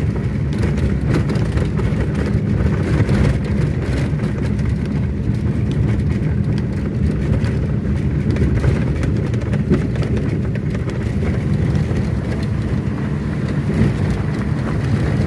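Car driving on a dirt road, heard from inside the cabin: a steady engine and road rumble with faint ticks from the rough surface.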